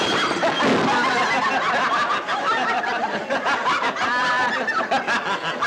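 A crowd of many people laughing together.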